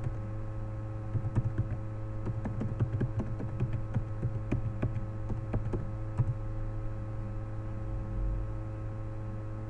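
Computer keyboard being typed on in quick, irregular key clicks that stop about six seconds in, over a steady electrical mains hum.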